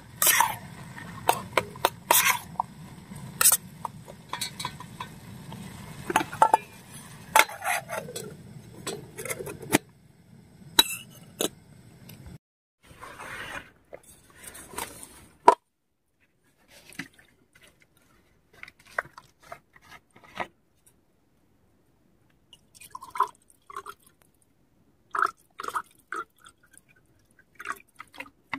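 A metal spoon scraping and stirring rice in an aluminium camping pot on a portable gas stove: quick clicks and scrapes over the burner's steady low roar, which stops about ten seconds in. After that, sparse clinks and taps of the pot and utensils. Near the end, water starts to pour from a plastic bottle into a glass.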